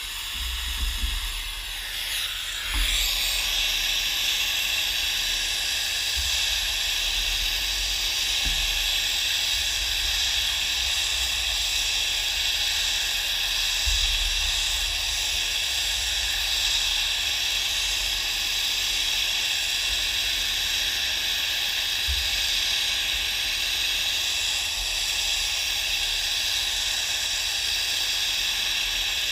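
Gas brazing torch flame hissing steadily while it heats the workpiece for silver brazing; about three seconds in it settles into a louder, even hiss.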